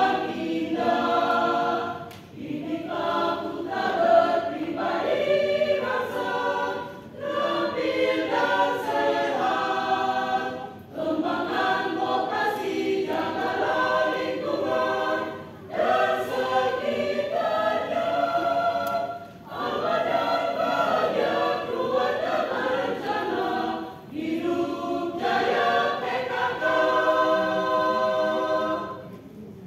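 A choir singing, in phrases broken by short pauses for breath; the singing stops shortly before the end.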